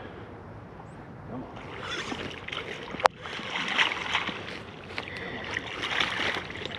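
Water splashing and sloshing as a hooked common carp thrashes at the surface while it is brought to the net, starting about a second and a half in and growing livelier after three seconds. There is a single sharp click about three seconds in.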